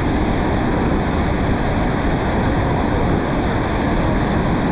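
Steady, loud rushing noise of wind and water around a tour boat below Niagara Falls, with no single event standing out.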